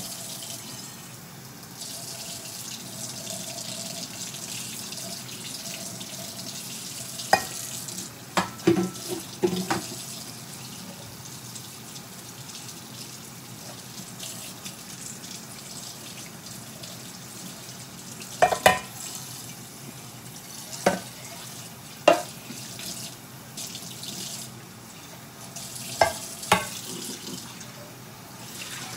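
Kitchen tap running cold water onto a frying pan in a stainless steel sink, the water splashing off the pan as it is rinsed and scrubbed. A few short, sharp knocks stand out now and then.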